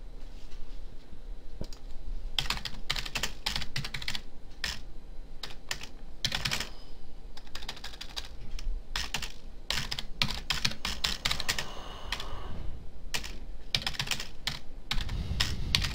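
Keystrokes on a computer keyboard: uneven typing in quick runs of clicks broken by short pauses.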